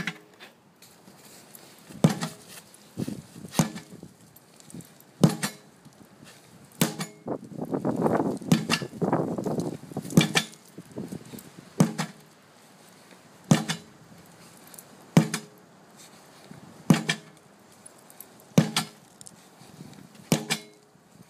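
A 10-pound sledgehammer striking a truck tire over and over, one hard whack with a short ring about every second and a half to two seconds, about a dozen blows in all. A longer burst of noise rises between blows around the middle.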